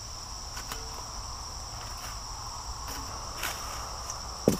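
Steady chirring chorus of crickets, with a few faint clicks of metal tongs and corn cobs going into a steel bowl, and one sharp knock near the end.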